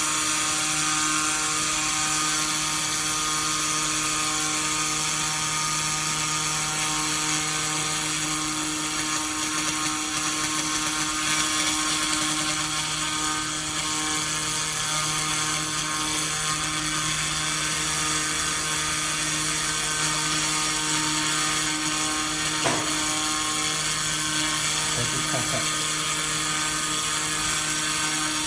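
Automatic platform laser welding machine running: a steady hum with a high hiss, unchanging throughout, with one short click about 23 seconds in.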